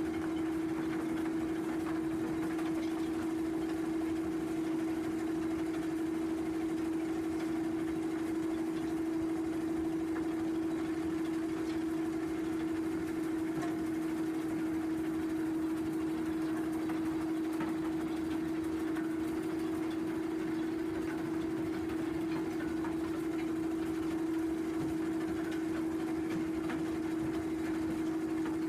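Mobile screening plant running steadily at a constant speed: an unchanging engine drone with a strong steady hum.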